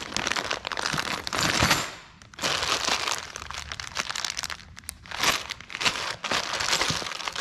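Plastic parts bags of bolts and grommets crinkling as they are handled and shuffled, in irregular bursts with brief lulls about two seconds and four and a half seconds in.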